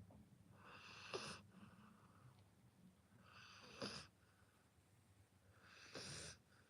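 Sleeping seven-month-old Rottweiler puppy snoring faintly: three slow snoring breaths, about two and a half seconds apart.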